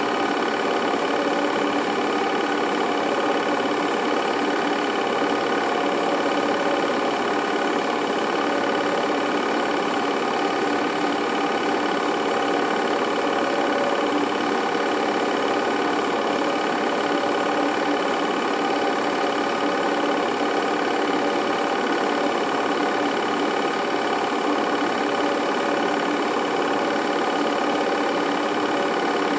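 Home-movie film projector running steadily, its mechanism giving an even, unchanging mechanical whir and clatter.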